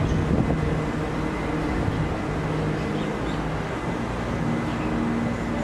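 Steady low rumble of distant traffic, with a faint hum that holds one pitch and then steps to another.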